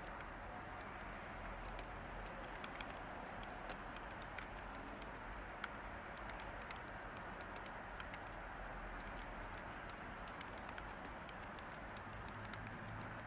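Light typing on a computer keyboard, scattered irregular key clicks, over a steady hiss of white noise.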